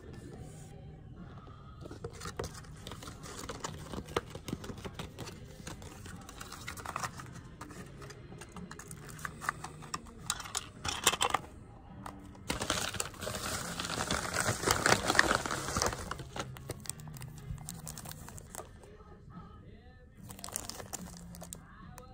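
Hands handling a fold-out paper CD booklet and shrink-wrapped cassette cases: paper rustling, small plastic clicks and taps, and cellophane wrap crinkling, loudest for about three seconds just past the middle.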